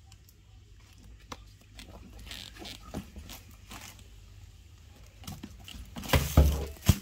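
Hands handling a tote bag and its zipper opening: scattered light clicks, taps and rustles, then a louder burst of rustling and bumping about six seconds in.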